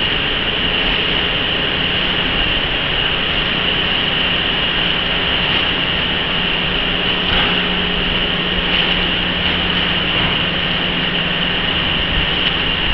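Steady factory machinery running: a continuous loud noise with a high whine and a low hum underneath.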